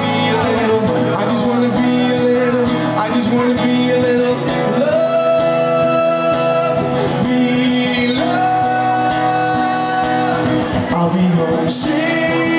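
Live pop song: a male singer with a strummed acoustic guitar, holding two long sung notes in the middle.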